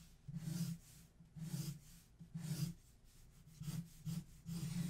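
Copic marker nib rubbing across a stack of paper in about seven quick shading strokes, each a short scratchy swipe with brief pauses between.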